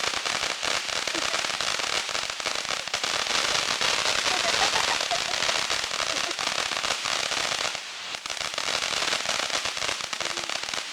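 Firecrackers going off in a rapid, continuous crackle of small sharp bangs, easing briefly about eight seconds in.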